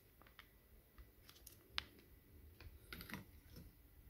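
Near silence with a few faint, scattered clicks and light handling noises.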